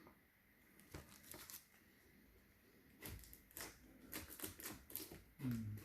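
Faint handling noise of cardboard and paper packaging: a scatter of short taps, clicks and rustles, busier in the second half, with a brief low voiced hum near the end.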